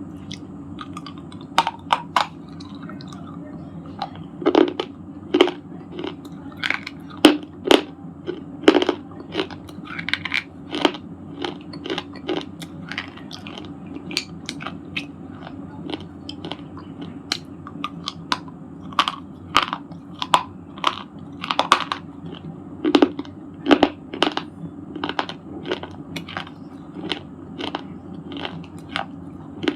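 Broken shale stone pieces bitten and chewed close to the microphone: sharp, irregular crunches, roughly one to two a second, over a steady low hum.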